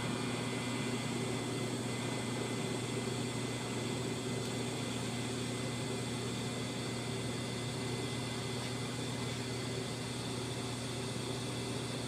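TIG welding arc running steadily on the bracket: an even hum with a hiss over it that holds without a break.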